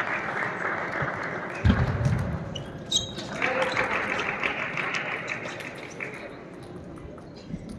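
Large sports hall ambience: a wash of voices and noise that swells and eases, with one low thud a little under two seconds in and a few sharp clicks around three seconds.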